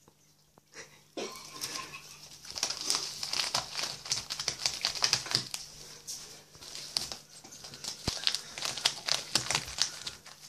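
An empty plastic catnip bag crinkling as a cat chews and paws at it: irregular crackling and rustling that starts about a second in and goes on in uneven flurries.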